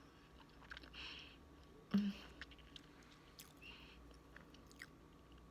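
A person chewing peanut butter chocolate cake: soft mouth clicks and smacks with short breaths, and a single knock about two seconds in.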